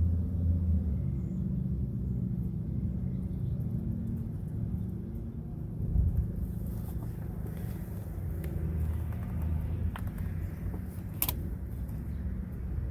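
Steady low outdoor rumble with a sharp click about eleven seconds in; no siren sounds.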